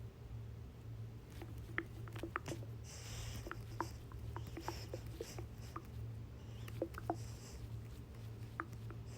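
Stomach gurgling and sloshing: scattered short pops and squelches with a couple of brief sloshing hisses, over a steady low hum.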